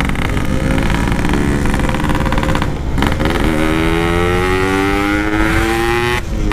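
Two-stroke Yamaha RX-King 135 motorcycle under way, pulling through the gears. The revs break off for a gear change about three seconds in, then the engine pitch climbs steadily as it accelerates, until the throttle is shut near the end.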